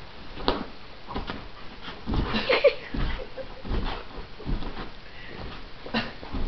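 Siberian husky's paws thudding on a bare mattress as it bounces and pounces, in irregular thumps about once a second. A brief squeak comes about two and a half seconds in.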